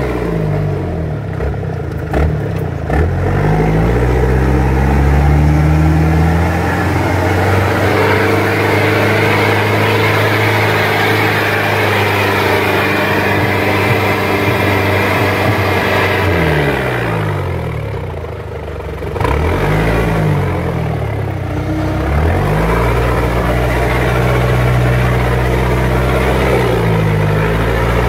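Engine of an open-sided off-road 4x4, heard from inside the cab as it drives a rough dirt track. It runs steadily, and its pitch falls and rises again several times as the throttle is eased off and reopened. There is a brief dip in loudness a little past the middle.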